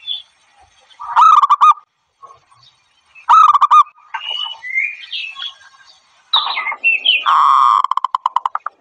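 Zebra dove calling: loud bursts of rapid staccato cooing notes about a second in, again about three and a half seconds in, and a longer run near the end that breaks into quick pulses. Fainter chirps from other birds come between the bursts.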